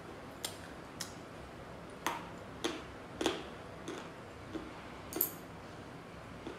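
Sticks of coloured chalk crunching between the teeth as they are bitten and chewed: about eight sharp, separate crunches at uneven intervals, the loudest near the middle.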